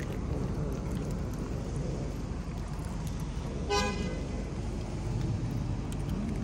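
A single short car-horn toot about four seconds in, over a steady low rumble of traffic.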